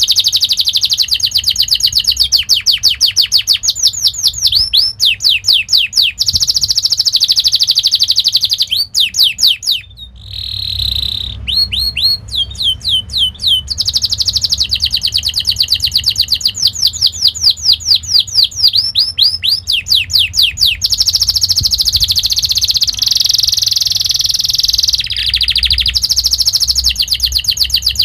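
Domestic canary singing a long rolling song of fast repeated rising notes and trills, with a short break about ten seconds in.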